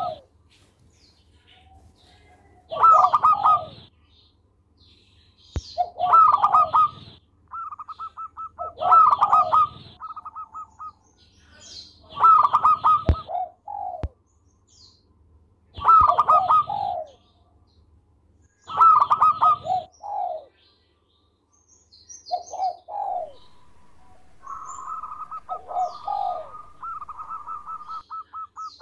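Zebra doves (perkutut) cooing: a loud coo phrase about every three seconds, with quicker, stuttering trains of soft coo notes between them, most of all near the end.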